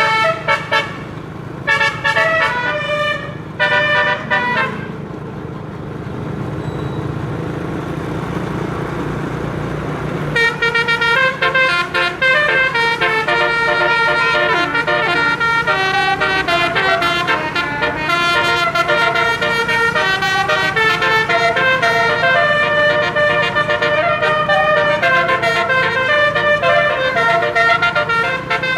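A bus's 12-note telolet air horn playing tunes: several short melodic blasts in the first few seconds, then a few seconds of engine and road noise, then the horn plays a long run of changing notes from about ten seconds in.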